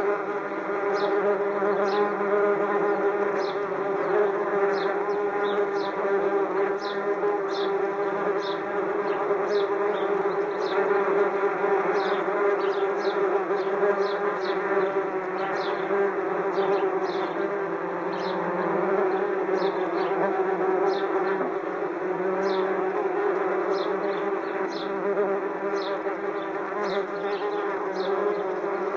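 A large swarm of wasps buzzing around their nest: a dense, steady, droning hum made of many overlapping wingbeats. Sparrows chirp in the background, with short falling chirps about once a second.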